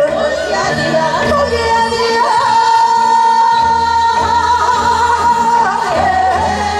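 A group of women singing a Korean folk song together through microphones over backing music, the melody wavering with ornaments and then holding one long high note for several seconds in the middle.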